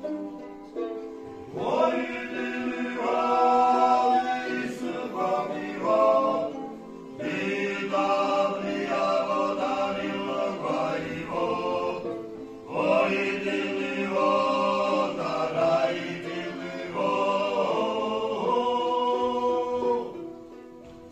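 Male ensemble singing a Svan polyphonic song in four phrases, accompanied by a chuniri and a changi. The instruments play alone for about the first second and a half before the voices come in.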